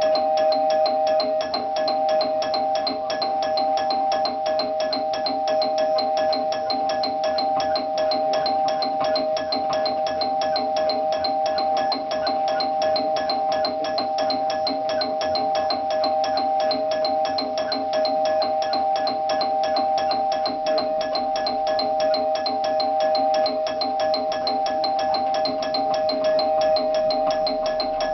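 Doorbell ringing without pause: a steady two-note tone under a rapid, even rattle of clicks, kept going by someone holding or repeatedly pressing the bell.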